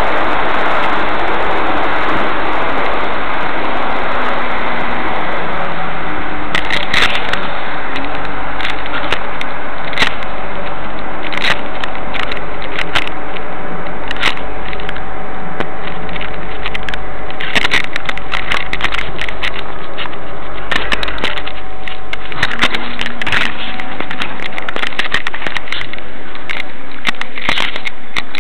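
Fabric rubbing and scraping against the microphone of a concealed, body-worn camera over a steady loud hiss, with frequent crackles and clicks starting a few seconds in.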